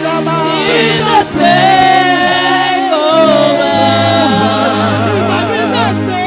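Gospel music at a church service: voices singing with vibrato over steady held chords and a bass line.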